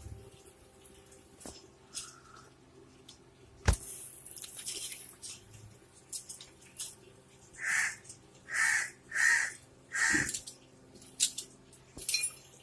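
A bird gives four short, harsh calls in quick succession in the second half, after a single sharp click or knock about four seconds in, with faint small clicks between.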